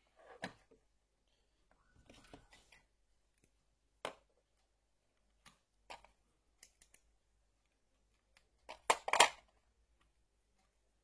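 Scattered clicks and snips of hand tools working electrical wire, with a louder pair of sharp snaps and a short rustle about nine seconds in.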